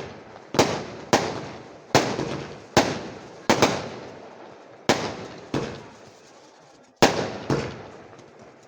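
Firecrackers going off one after another at uneven intervals, about a dozen sharp bangs, each followed by a fading echo, with a short lull near the middle.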